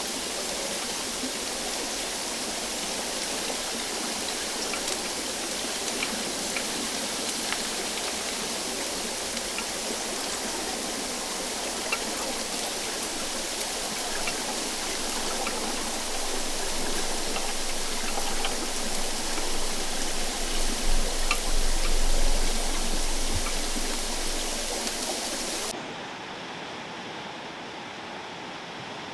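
Hydrophone recording of a river current flowing near a weir: a dense, steady rushing hiss with scattered faint ticks. It swells with a low rumble about two-thirds of the way through, then drops abruptly, turning duller and quieter near the end.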